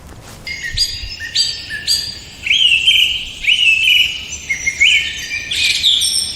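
A bird chirping: a run of short, high calls repeated about twice a second, which cuts off suddenly at the end.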